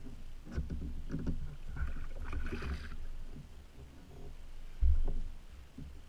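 Knocks and water splashing around a fishing kayak as a bull redfish is let go over the side, over a low rumble. A heavy low thump nearly five seconds in is the loudest sound.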